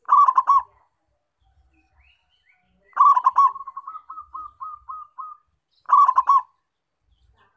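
Zebra dove singing: three phrases of quick stuttering cooing notes, the middle one trailing off into a run of short notes.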